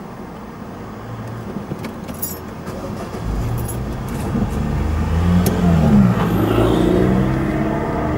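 Road traffic moving off over a level crossing as the barriers rise: car and van engines pulling away and passing close. The noise builds from about three seconds in, and an engine note rises and then falls in pitch around six seconds in, where it is loudest.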